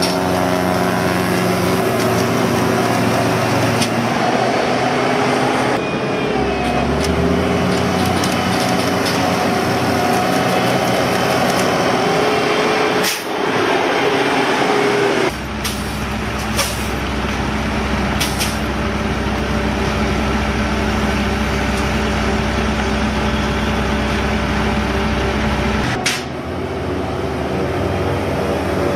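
Diesel engines of heavy road-construction machinery running steadily, the engine note changing abruptly three or four times as one machine gives way to another.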